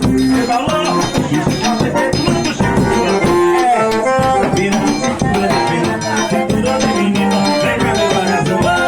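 Accordion (sanfona) playing a quick melody of short notes over a steady percussion rhythm, in northeastern Brazilian dance style.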